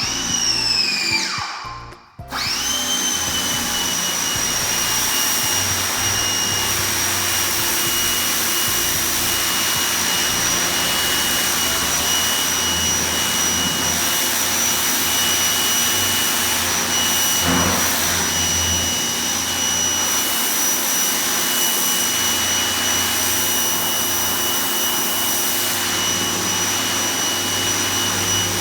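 Ryobi 1,800 PSI electric pressure washer switched on: its motor and pump start, cut out about two seconds in, then start again and run steadily with a high whine over a loud rushing noise.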